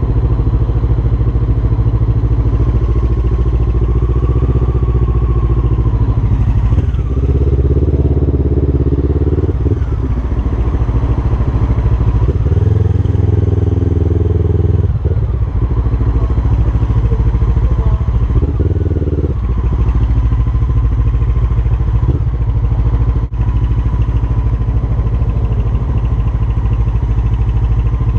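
Honda CB500's parallel-twin engine running while riding slowly in traffic, with the throttle opened and closed several times, each opening bringing a rise in engine note over a steady low rumble.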